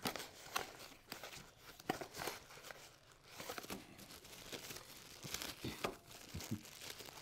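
Thin plastic wrapping crinkling and rustling as a power cord is pulled out of it and unwrapped, in faint, irregular rustles with a few small taps.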